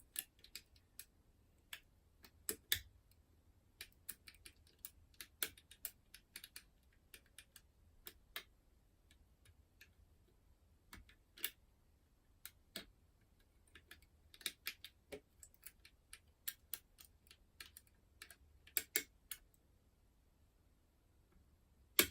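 Faint, irregular metallic clicks and ticks of a curtain pick and tension wire working the levers of an ERA Fortress five-lever curtain mortice lock, coming in small clusters with short pauses.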